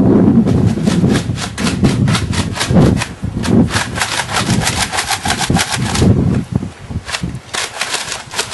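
Nerf blasters being primed and fired: a fast, irregular run of sharp clicks and snaps, densest in the middle, with dull thuds underneath.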